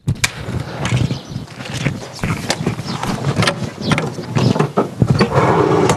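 Auto-rickshaw being boarded and started: a run of clicks and knocks from its body and controls, then its small engine catches about five seconds in and runs steadily.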